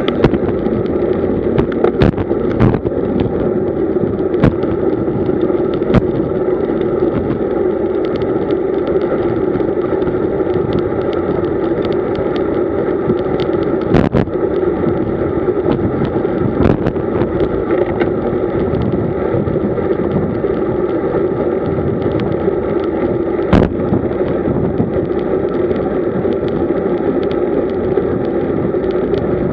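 Steady rush of wind and road noise on a road bike's mounted camera, riding at about 40 km/h, with scattered sharp clicks and knocks.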